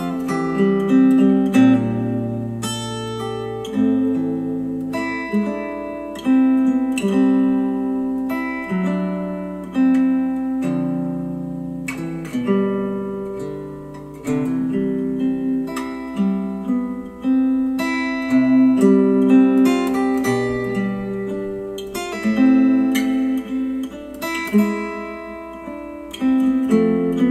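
Instrumental acoustic guitar music, plucked notes and strummed chords that start sharply and ring out, played back through Monitor Audio Bronze 100 bookshelf speakers driven by a Cambridge Audio CXA81 integrated amplifier.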